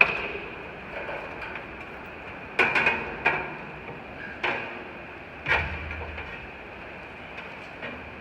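Steel grain-bin floor planks clanking and knocking as they are worked into place, with sharp metallic knocks that ring in the steel bin: a loud one at the start, a quick cluster of three or four about two and a half seconds in, then single knocks every second or so.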